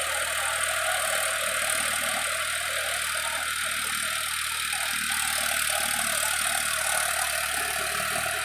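Eicher tractor's diesel engine running steadily under load as it drives a rotavator through wet paddy mud.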